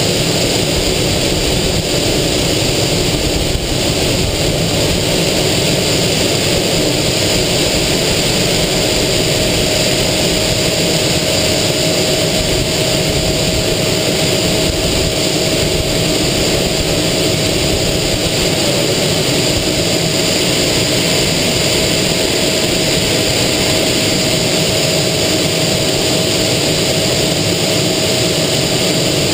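Aero L-29 Delfín jet trainer in flight, heard from inside the cockpit: its Motorlet M-701 turbojet running steadily under a loud, even rush of air, with a thin steady whine running through it.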